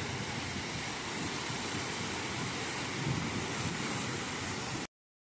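A bus driving through floodwater on a street: a steady rush of displaced water with engine and traffic noise. The sound cuts off suddenly near the end.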